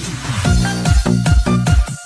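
Electronic dance music with a heavy kick drum, about four beats a second, coming in hard just after a build-up.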